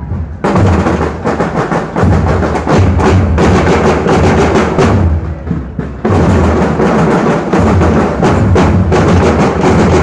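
School marching band's drums playing a fast, steady beat of many close strokes. The drumming drops out briefly just after the start and again about six seconds in.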